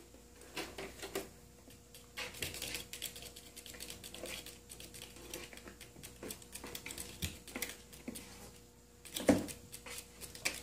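Kitten claws scratching and clicking against a hard post in quick, irregular runs, with one louder knock about nine seconds in.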